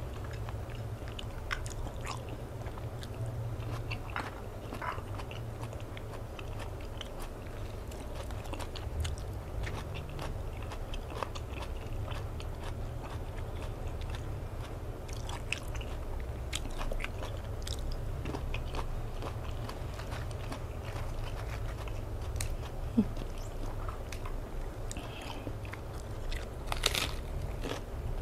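Close-up eating sounds: a person chewing, with scattered small wet mouth clicks, and a cluster of crisp crunches near the end as she bites into lettuce. A low steady hum runs underneath.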